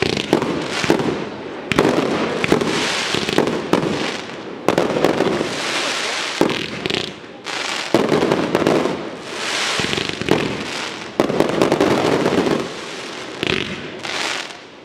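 Fireworks display: aerial shells and cakes bursting in quick succession, many sharp bangs over a dense crackle from glittering stars.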